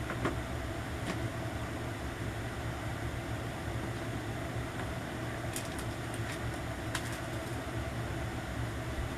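Steady low room hum with a light hiss, with a few faint light clicks near the start and again around five to seven seconds in, as plastic phone cases are handled and put up.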